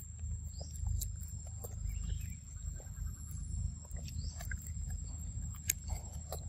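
Long-tailed macaque eating ripe papaya close to the microphone: small wet chewing and smacking clicks over a low rumble, with a steady thin high whine and a couple of short high chirps.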